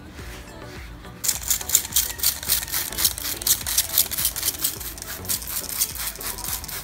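Rapid scrubbing strokes on a Jeep Renegade's rubber door seal with cleaning solution. The scrubbing starts about a second in and goes on at about four to five strokes a second.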